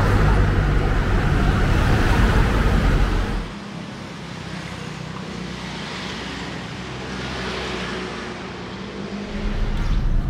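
City road traffic: cars passing close by, then about three and a half seconds in the level drops suddenly to a quieter, steady traffic hum that swells a little near the end.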